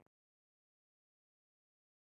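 Silence: the sound track is blank after a brief sound cuts off in the first instant.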